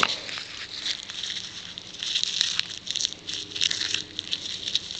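Spotted jewelweed stems and leaves being crushed and rubbed between the hands to squeeze out their juice: irregular crackling and rustling with a few sharp clicks.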